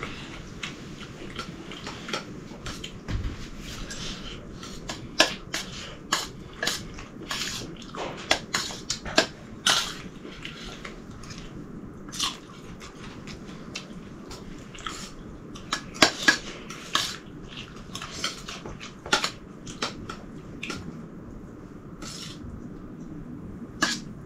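Metal spoons clinking and scraping against stainless steel plates of rice and curry, in irregular sharp clicks, with chewing between them.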